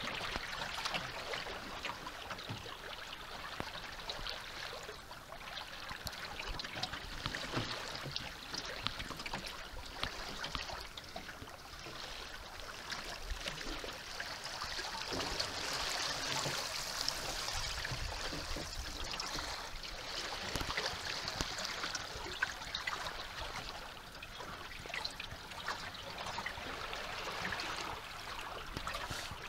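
Water splashing and trickling along the wooden hull of a sailing canoe under way, a steady hiss broken by many small splashes.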